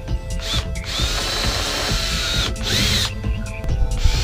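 Cordless drill with a 3/16-inch bit boring holes through a plastic kayak hull, run in several bursts. The longest lasts about a second and a half, and the motor's whine wavers in pitch as the bit cuts.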